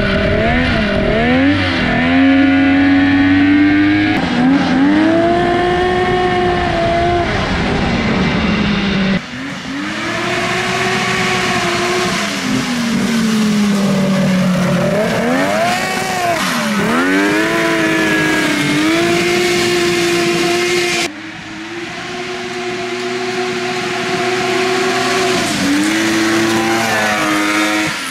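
Polaris XLT 600 two-stroke twin snowmobile engine in a small off-road buggy, revving up and dropping back again and again as it accelerates and slows on the trail. The sound breaks off abruptly twice, about nine seconds in and again near twenty-one seconds.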